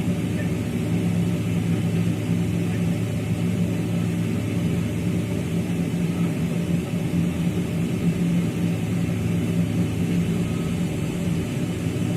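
Steady drone inside a jet airliner's cabin, with a constant low hum, as the engines run while the plane waits in line for takeoff.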